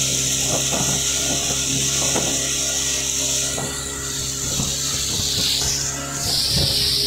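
Speedboat engine running at a steady speed, a constant low hum, with a loud hiss of wind and rushing water.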